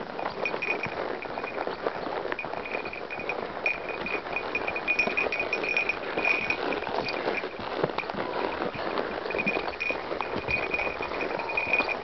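Tennessee Walking horse walking on a dirt trail, heard from the saddle: a steady run of hoofbeats and tack noise, with a high ringing note that comes and goes.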